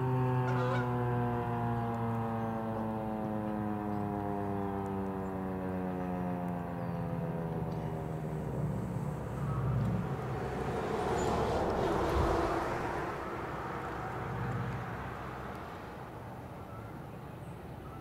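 Federal Signal 2001-SRN rotating warning siren winding down at the end of its test: its tone slides steadily lower and fades away over about nine seconds as the rotor slows. A rushing noise then swells and fades a few seconds later.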